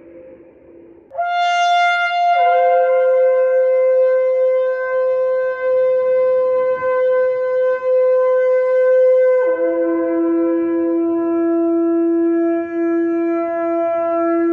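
Ram's-horn shofar blown in one long sustained blast: after the tail of the previous note dies away, it starts on a high note about a second in. It drops to a middle note a second later, then steps down again to a low note held to the end.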